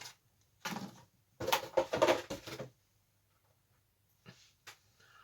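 Plastic bags holding plastic model kit sprues crinkling as they are handled, in two short bursts, followed by two faint clicks near the end.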